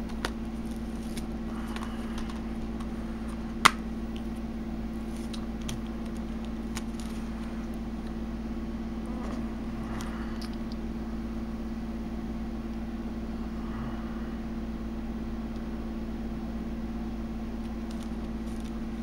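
Hands handling a plastic Blu-ray case and a cardboard art box, making faint scattered clicks and rustles and one sharp, loud click about four seconds in, over a steady background hum.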